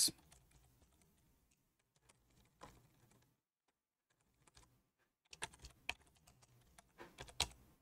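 Faint keystrokes on a computer keyboard: a single tap about two and a half seconds in, then a quick run of taps over the last few seconds as a word is deleted and retyped.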